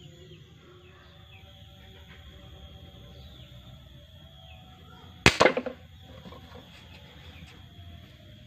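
Air rifle firing a fish-hunting dart (paser ikan): one sharp shot about five seconds in, with a short ringing tail.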